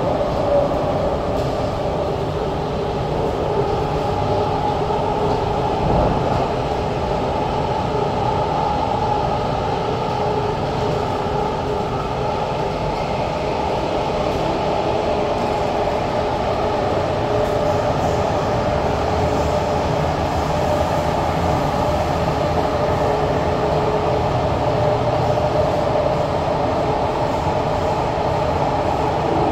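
SMRT CT251 metro train running between stations, heard from inside the carriage: a steady rumble of wheels on rail with a constant hum over it.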